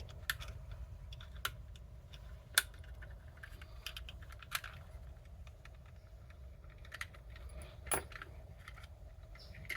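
Scattered small plastic clicks and taps as a car power-window master switch is taken apart by hand, over a faint low hum. The sharpest clicks come about two and a half, four and a half and eight seconds in.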